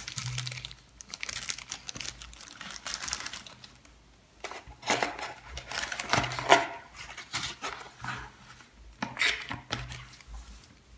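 Crinkling plastic wrap and rustling cardboard packaging from a phone being unboxed, in irregular bursts with a lull about four seconds in.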